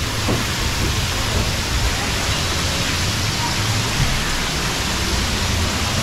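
Steady hiss of spraying and falling water from a water-park splash play structure.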